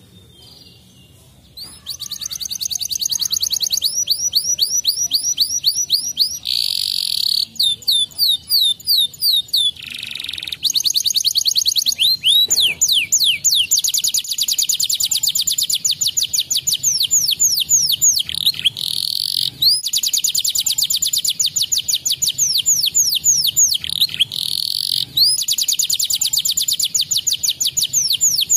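Domestic canary singing a long, fast song made of rapid trills: runs of quickly repeated sweeping notes that change from one roll to the next with only brief breaks. The song starts about two seconds in, after a faint short whistle.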